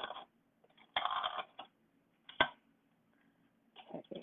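Scissors cutting through a styrofoam plate, heard as separate cuts of about half a second each: one at the start, one about a second in and one near the end. A short sharp click comes about two and a half seconds in.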